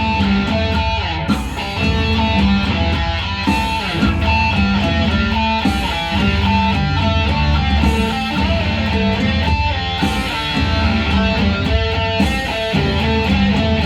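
Background music led by guitars, with a steady bass and beat.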